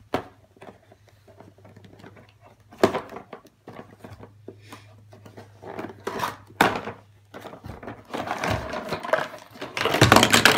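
A cardboard toy box being opened and handled: scattered rustles and knocks. Near the end comes a louder, busy clatter and rustle as the plastic Play-Doh tubs and moulds are tipped out onto a wooden table.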